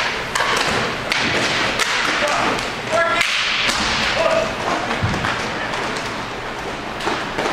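Ice hockey play in an echoing rink: sticks and puck clacking and thudding against the boards in frequent short knocks, over a steady wash of rink noise, with a few brief shouts from players.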